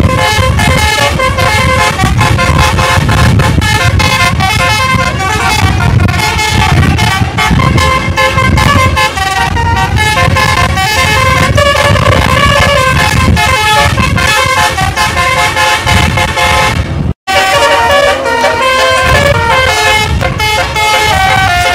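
Bus telolet horn: a multi-tone basuri horn set playing quick, constantly changing tunes over engine noise, loud throughout. The sound cuts out abruptly for a moment about seventeen seconds in.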